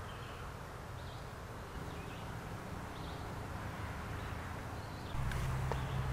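Quiet outdoor ambience with faint background hiss and a few short, faint bird chirps; a low hum steps up about five seconds in.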